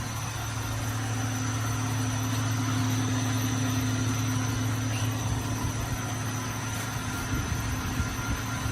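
Carbonization furnace machinery running steadily: an even motor hum with a low drone and a fainter higher tone over a constant hiss.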